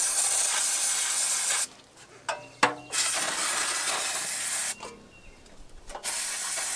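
Aerosol cleaner spray hissing in long bursts onto a dirty mower engine: one burst cuts off after about a second and a half, a second runs for about two seconds in the middle, and a third starts near the end. A couple of light clicks fall in the first gap.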